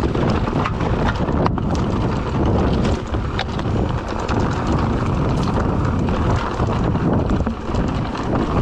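Mountain bike riding down a rocky dirt trail: tyres rumbling and crunching over stones and roots, with frequent sharp knocks and clicks as the bike jolts over the rough ground, and wind on the microphone.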